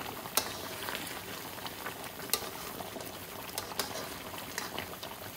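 Thick chicken karahi curry sauce bubbling over high heat, nearly ready, with a ladle stirring through it: a steady bubbling sizzle with scattered sharp pops.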